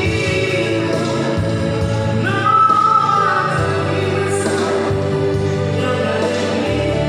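A man and a woman singing a duet into handheld microphones over amplified backing music, with a louder held note about two and a half seconds in.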